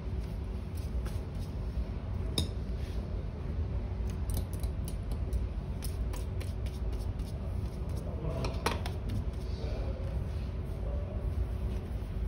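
Small clicks and knocks of shoe-shine supplies handled on a tabletop: a polish tin and a small water bottle with its plastic cap. There is a sharper click about two seconds in and a cluster of knocks a little after eight seconds, over a steady low background hum.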